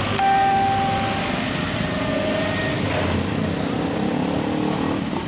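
Forklift engine running steadily, a low even rumble.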